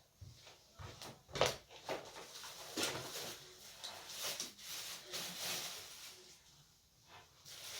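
Handling noises from a stick vacuum cleaner's plastic parts and packaging being picked up and moved: a string of separate knocks and clicks over light rustling.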